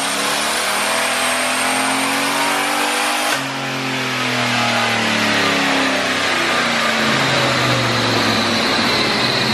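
Twin-turbo 5.3-litre LS V8 at wide-open throttle on a chassis dyno, with a sharp pop about a third of the way in: the silicone coupler blowing off the throttle body under boost. The level dips for a moment, then the engine keeps revving higher with the intake open.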